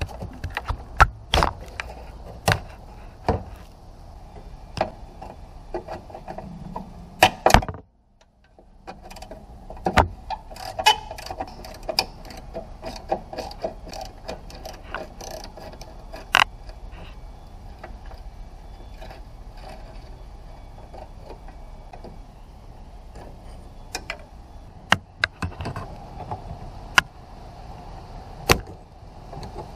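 Scattered sharp clicks and knocks at irregular intervals over a low steady background, with a brief cut-out to silence about eight seconds in.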